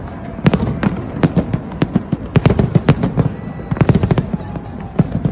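Fireworks bursting in quick, irregular succession, about two to three sharp bangs a second over a low rumble.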